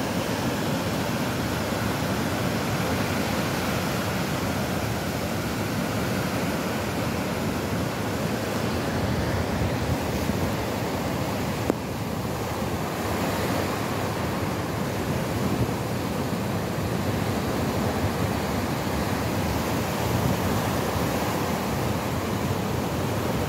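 Ocean surf breaking and washing up a sandy, rocky shore, a steady rush of waves.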